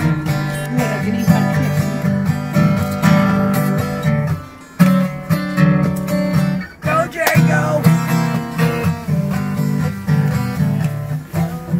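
Steel-string acoustic guitar strummed by hand, playing chords in a steady rhythm.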